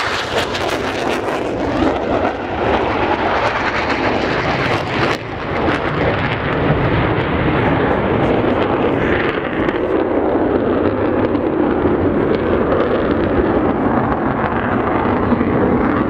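Tornado GR4 jets' twin RB199 turbofans running loud as the jets make a low, fast pass. Sharp pyrotechnic blasts from the simulated ground attack sound about five seconds in.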